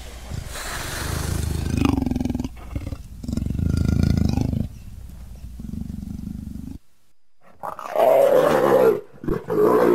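Big cat growling: three long, low growls, then after a brief pause a louder, higher-pitched call near the end.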